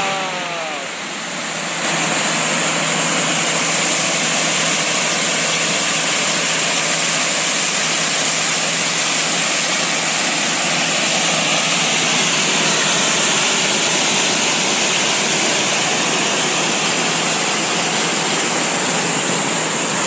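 Waterfall pouring over rock into a pool: a loud, steady rush of falling water that swells to full strength about two seconds in.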